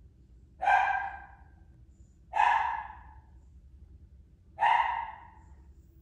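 A dog barking three times, each bark about two seconds after the last and fading quickly.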